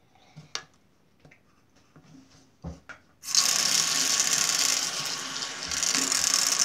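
A few small handling clicks, then an electric toothbrush switched on about halfway through, buzzing steadily and loudly close to the microphone.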